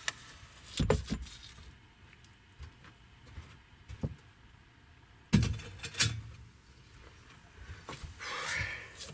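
Scattered knocks and clinks of objects being handled, the loudest a sharp clank about five seconds in, with a brief rustling scrape near the end.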